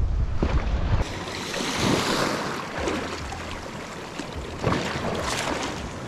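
Heavy wind buffeting the microphone that stops abruptly about a second in. After it, lake waves splash and lap in the wind.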